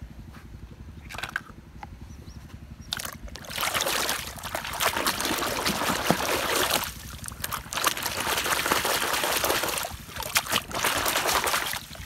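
A small plastic toy vehicle being swished and scrubbed by hand in shallow pond water: splashing and sloshing. It is quieter for the first three seconds, with a few small drips, then the splashing runs steadily from about three seconds in, with short breaks near seven and ten seconds.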